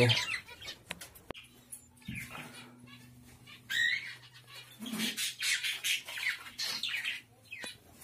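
Pet budgies and other cage birds squawking and chirping in short, scattered calls, busiest in the second half, with a few sharp clicks and a faint steady low hum underneath.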